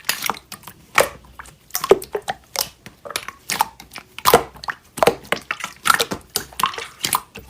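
Slime being squeezed and pressed by hand, giving irregular sharp clicks and crackles, a few a second.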